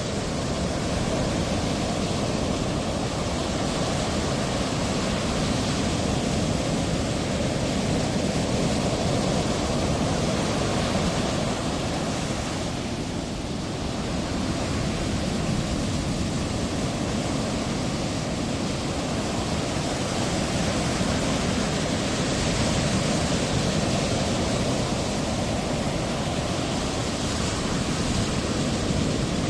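Steady rushing wash of breaking ocean surf, easing slightly about halfway through and building again.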